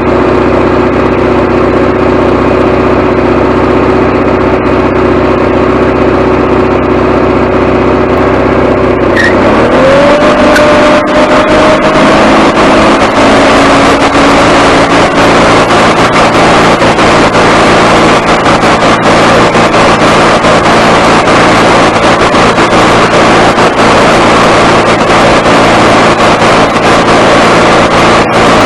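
Gasoline engine of a Wood-Mizer LT40HD sawmill, fed from a temporary fuel tank, idling steadily, then revved up about nine seconds in and held at a higher speed.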